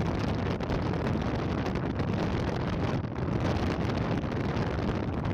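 Wind buffeting the microphone over the steady low rumble of a Volkswagen Kombi driving along, engine and road noise with no change in pace.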